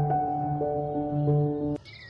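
Soft background music of gently held, evenly paced notes that cuts off abruptly near the end, where a high bird chirp begins.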